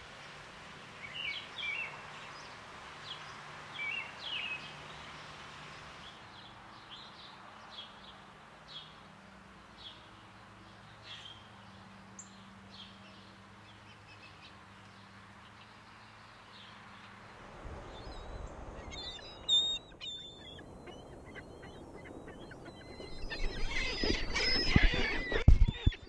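Small songbirds chirping at a seed feeder: short high chirps over a faint hiss, thinning to sparse faint chirps and ticks midway. Near the end, gulls calling loudly, with knocks and scuffs right at the microphone as they crowd around it.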